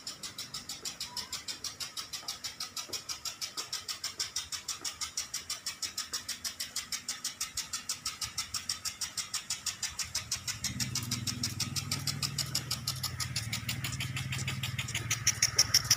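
Impact sprinklers watering a football pitch, ticking rapidly and evenly at about six ticks a second, louder near the end. A low, steady engine hum joins about ten seconds in.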